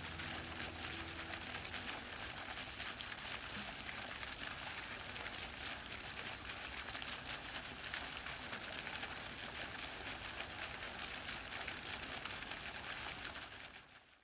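The last piano notes die away in the first second or two, leaving a faint, steady hiss that fades out near the end.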